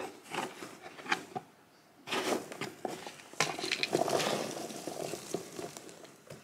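Cardboard gift box and its lid being handled: a few light knocks and clicks, then denser rustling and scraping from about two seconds in.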